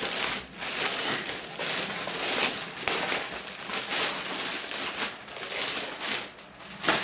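Cellophane packaging crinkling and rustling as it is pulled off a robot vacuum, with continuous crackles throughout.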